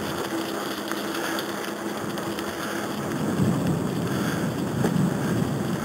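Wheels rolling over a trail thick with fallen leaves: a steady rustling, rumbling noise of the tyres through the leaves, growing louder and rougher about three seconds in, with a faint steady hum under it at first.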